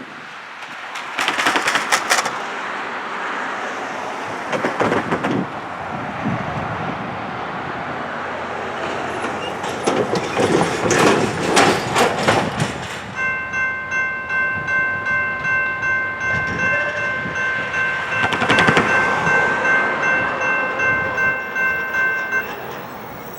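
LORAM rail grinder train passing while grinding the rail: a loud, harsh, continuous grinding noise that swells in several surges. From a little past halfway until near the end, a steady high-pitched tone sounds over it, with the level pulsing about twice a second. The noise drops away sharply near the end.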